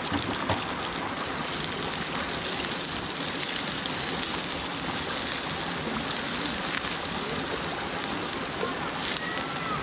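Garlic, onion and ginger sizzling steadily in hot oil as they sauté.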